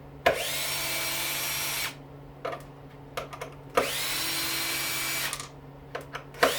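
Power drill-driver backing screws out of a dishwasher motor housing: two runs of about a second and a half, each spinning up to a steady whine, with a few small clicks between them and a third run starting near the end.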